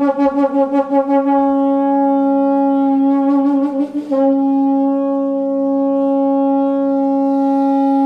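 Conch shell (shankh) blown in long held notes, the practice of shankhnad. The note wavers at first and breaks briefly about four seconds in, then resumes and holds steady.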